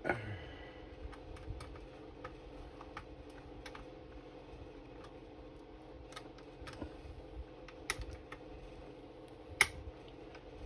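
Scattered light clicks and taps of plastic model-kit parts being handled and fitted together by hand, with a sharper knock at the very start and another near the end.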